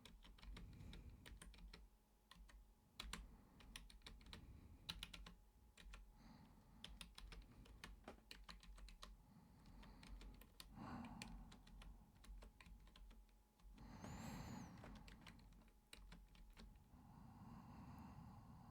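Quiet computer keyboard typing: a steady run of irregular key clicks, broken twice midway by a soft breath.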